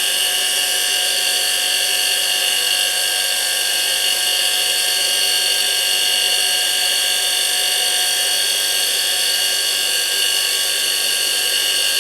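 Bench grinder running steadily, unloaded, at full speed: a fairly loud, high-pitched whine made of several steady tones, about 102–103 decibels right next to the machine.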